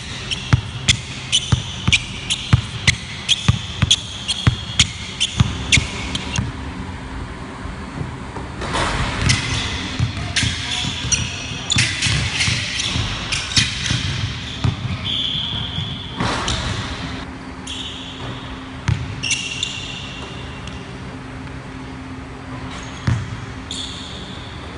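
Basketball dribbled on a hardwood gym floor, echoing in the large hall. For the first six seconds the bounces come steadily, about two a second. After that comes faster, busier dribbling with short sneaker squeaks, then a few scattered bounces near the end.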